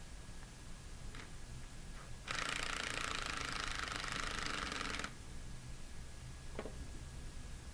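Ratchet clicking rapidly for about three seconds as a lock nut on the pump's pilot shaft is run down, with a few light clicks of tools on metal before and after.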